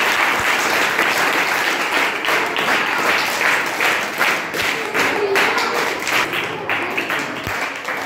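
A room full of people clapping hands in applause, dense and steady, thinning out near the end.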